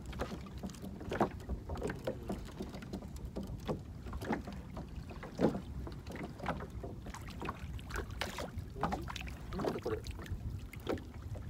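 Small waves lapping and slapping against the hull of a small inflatable boat over a steady low rumble, with scattered sharp knocks, the two loudest about a second in and about halfway through.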